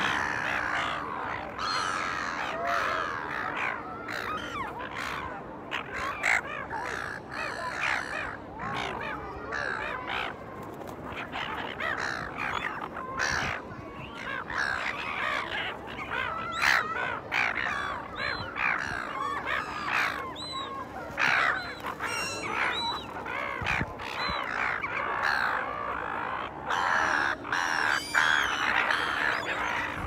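A flock of silver gulls calling all at once, many short harsh squawks overlapping without pause.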